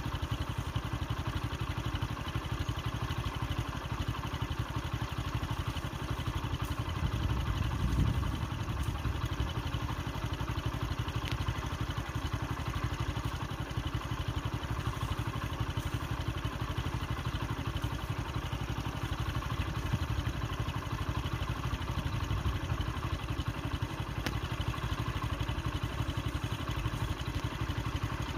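A vehicle engine idling steadily, with a brief swell in its low rumble about seven to eight seconds in.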